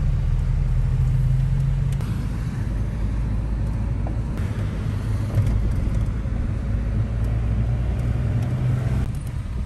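A car on the move: a steady, low road-and-engine rumble.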